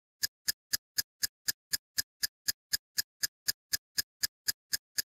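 Steady ticking sound effect running with a film countdown leader, sharp evenly spaced ticks about four a second.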